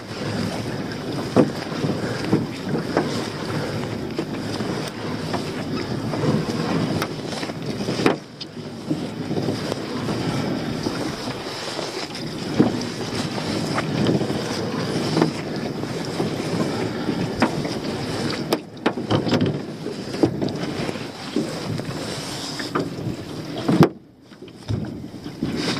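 Wet, weed-covered lobster-pot rope being hauled hand over hand into a dinghy: continuous rough rubbing and rustling with many small knocks, and wind on the microphone. The noise drops away briefly three times, about a third of the way in, two-thirds in and near the end.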